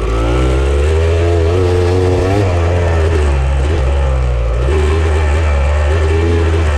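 Off-road vehicle engine running under changing throttle, its pitch rising and falling, then holding steadier from about five seconds in.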